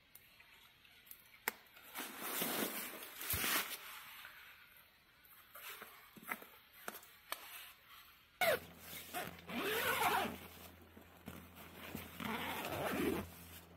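Zipper on a tent door pulled in several runs, among rustling of tent fabric and gear.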